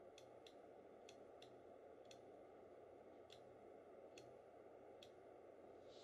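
Faint clicking of a small fischertechnik pushbutton switch pressed and released by hand: about eight short, irregular clicks, some in quick pairs, over a steady low hiss.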